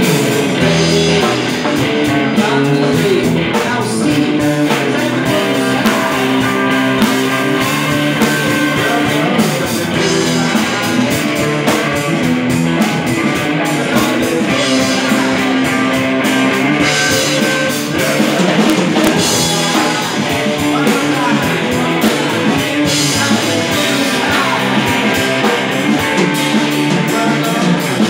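Live band playing: electric guitar and drum kit with cymbals, with a man singing into a microphone.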